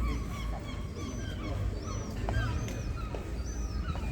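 Repeated short, high-pitched animal calls, roughly one a second, over a steady low rumble.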